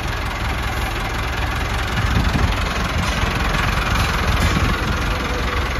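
Massey Ferguson 394H tractor's diesel engine running steadily, getting somewhat louder from about two seconds in.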